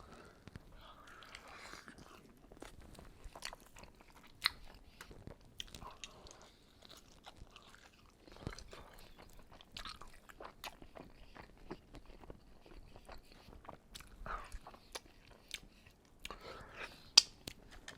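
A person biting and chewing chicken close to the microphone: faint, irregular wet mouth clicks and soft crunches, with a few sharper clicks, one about four and a half seconds in and one near the end.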